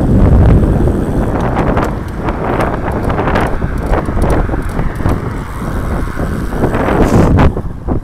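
Wind buffeting the microphone of a camera mounted on a moving road bike: a loud, gusty rumble.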